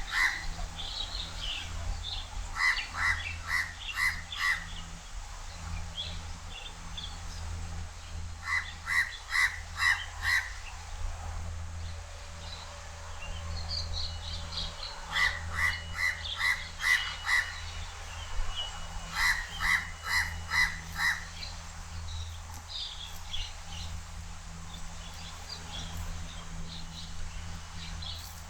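House crow calling: repeated runs of four or five quick harsh caws, a new run every few seconds. Fainter high chirps from other birds come between the runs.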